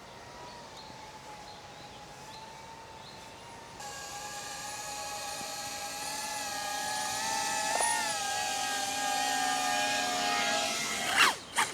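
DJI Avata 2 FPV drone's propellers whining as it flies back toward the pilot, faint at first, then suddenly stronger about four seconds in and growing steadily louder. The pitch wavers about eight seconds in, and near the end there is a quick sweep in pitch.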